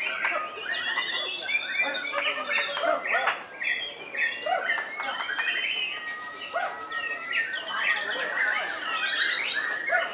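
Caged white-rumped shamas singing, several birds at once: a dense, continuous mix of whistled phrases, quick rising and falling notes, trills and harsh chattering calls.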